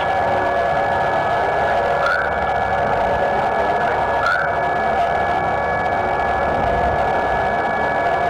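Steady electronic drone and hiss with several held tones, and a short rising chirp twice, about two seconds apart.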